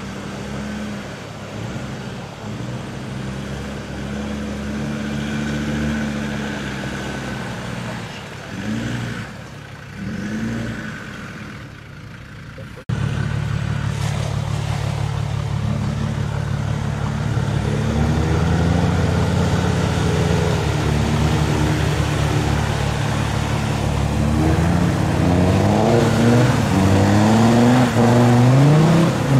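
Land Rover Discovery TD5's five-cylinder turbodiesel engine revving hard under load as the truck churns through deep mud and water, revs rising and falling again and again. It gets suddenly louder about halfway through, and the revs climb repeatedly near the end as mud and water are thrown up.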